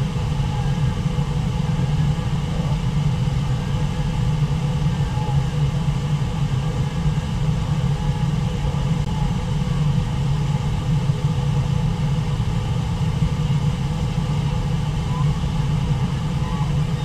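Steady roar of the Brooks River waterfall, a wide cascade of white water, with a deep, even rumble underneath.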